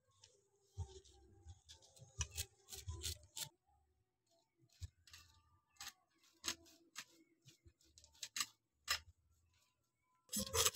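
Scales being scraped off pomfret with a small hand-held fish scaler: faint, irregular short scraping strokes and clicks, some in quick runs and some spaced out.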